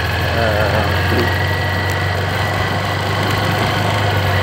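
Motorcycle engine running while riding, a steady low drone with no change in pitch.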